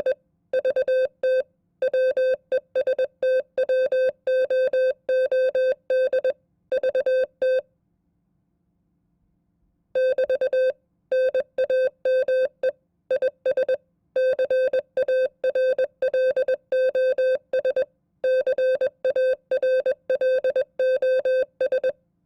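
Morse code (CW) sent as a keyed, mid-pitched beep at 20 words per minute: quick runs of dots and dashes, with one pause of about two seconds a third of the way in.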